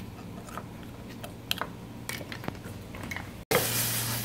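A metal spoon clicking and scraping against oyster shells as raw oysters are shucked, in scattered sharp clicks. About three and a half seconds in, it cuts to oysters sizzling in a hot frying pan.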